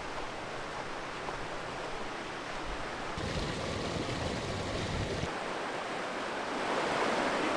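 Rushing water of a shallow, fast mountain river running over rocks: a steady hiss of water that changes character about three seconds in and again about five seconds in, and grows louder near the end.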